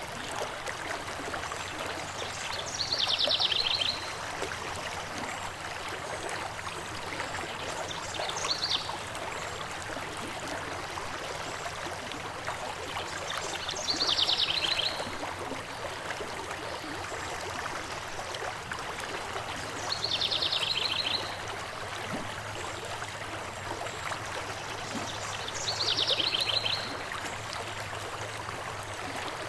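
A stream runs steadily as an even rushing of water. About every six seconds a bird sings a short, high, trilled phrase lasting about a second, five times in all, one of them fainter.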